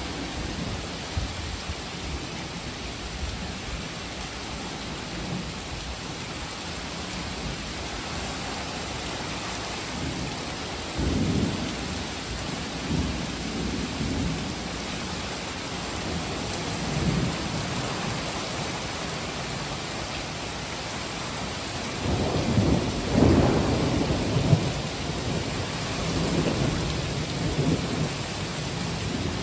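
Heavy thunderstorm rain pouring steadily, with thunder rumbling several times. The loudest and longest rumbling comes about two-thirds of the way through.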